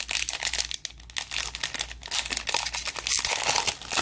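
Foil-plastic wrapper of a 2020 Donruss football card pack crinkling and crackling as it is handled and torn open by hand, loudest near the end.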